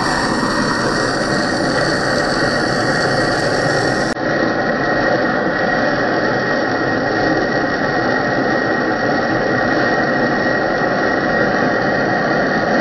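Hand-held gas torch burning with a steady hiss as it heats a brass pipe fitting for brazing, a faint whistling tone running through it. The sound dips briefly about four seconds in.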